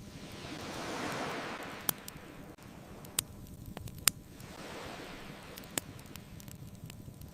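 Ocean waves washing in twice, each swell building and then fading, with a campfire giving four sharp crackling pops over the surf.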